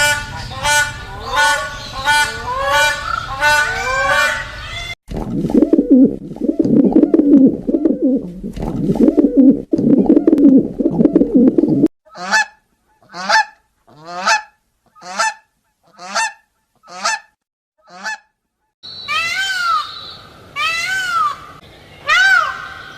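A run of bird calls from different species cut one after another: quick repeated pitched calls, then a stretch of dense low calling, then single short calls about every two-thirds of a second, and near the end a few rising-and-falling calls.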